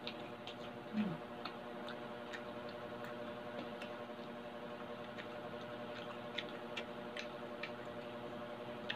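Crispy fried pork belly being chewed close to the microphone: irregular sharp crunches and crackles of the fried skin, over a steady low hum.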